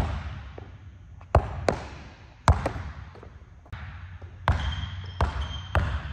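A basketball being dribbled on an indoor gym court: about seven hard, uneven bounces with a short gap in the middle, each one echoing through the large hall.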